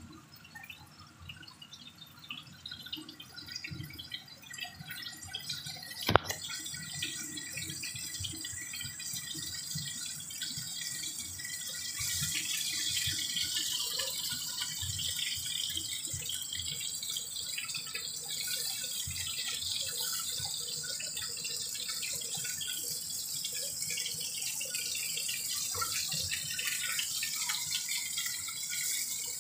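Chicken pieces frying in oil in a nonstick frying pan: a steady crackling sizzle that grows louder and brighter about twelve seconds in. A single sharp click about six seconds in.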